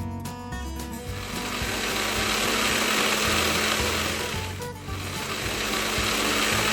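Electric mixer grinder starting about a second in and running, grinding soaked rice with a little water into batter; it cuts out briefly after about four and a half seconds and starts again.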